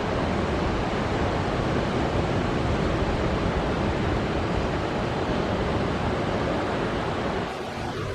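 Steady rush of ocean surf breaking, easing slightly near the end.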